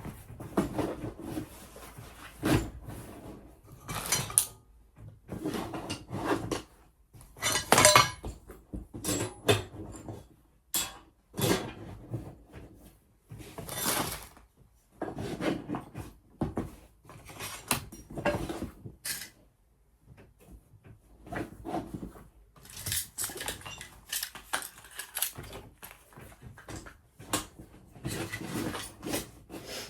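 Metal welding tools such as flint strikers and a tip cleaner clinking and clattering as they are handled and put back into a tool bag, in irregular knocks and rattles with short pauses.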